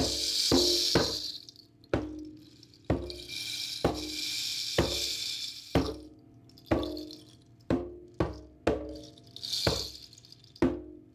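Hand drum struck in a slow, uneven beat, roughly one stroke a second with a few quick double strokes, each stroke ringing briefly. A high shaking rattle swells in and out three times between the strokes.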